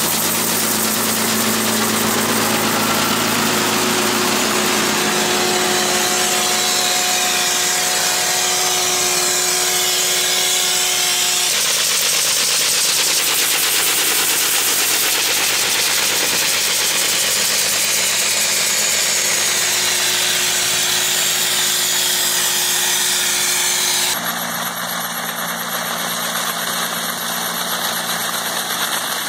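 A tractor engine runs steadily under the continuous hissing of a Collard pneumatic leaf remover firing rapid pulses of air into the vine canopy. Near the end the sound drops a little and changes character.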